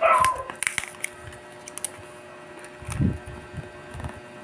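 Hands handling a tape-sealed cardboard parcel: scattered small clicks and rubbing, with a dull thump about three seconds in.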